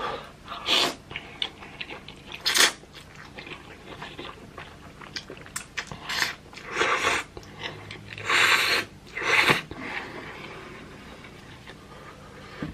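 Close-up eating sounds: a person chewing and slurping instant ramen noodles in irregular bursts, some short and crunchy, some drawn out for about a second.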